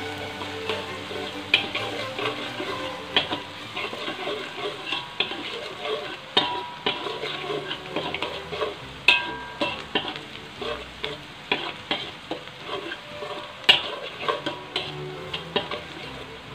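Chopped garlic and onion sizzling in hot oil in a wok while a slotted metal spatula stirs them, scraping and clicking against the pan many times.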